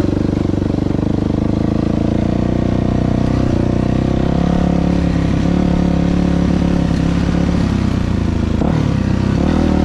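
2000 Yamaha YZ426F dirt bike's single-cylinder four-stroke engine running under way on a ride. Its note drops about three and a half seconds in and shifts again near the end.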